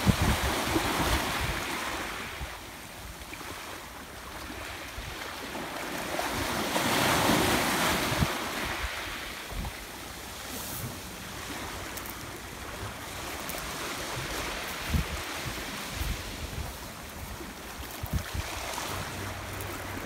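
Atlantic surf breaking on a sandy beach: a steady rushing hiss that swells and eases, loudest about seven seconds in, with wind buffeting the microphone in low thumps.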